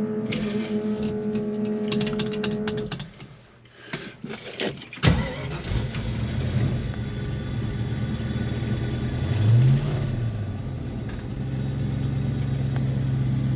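A steady hum cuts off about three seconds in and a few clicks follow. About five seconds in, the 1965 Ford Mustang's engine is cranked and starts. It revs briefly near ten seconds, then settles into a steady idle.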